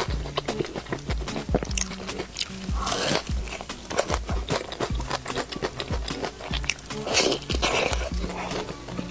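Background music with a steady beat, over close-up crunchy bites and chewing of fried chicken, louder about three seconds in and again near the end.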